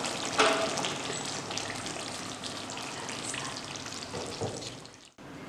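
Thick brinjal curry gravy sizzling and popping as it cooks in a steel kadai, with many small crackling ticks. The sound fades near the end and then cuts off abruptly.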